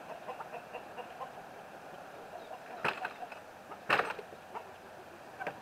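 Hens clucking on and off, with two sharp knocks about a second apart, around three and four seconds in, as the wooden coop doors are swung shut and latched.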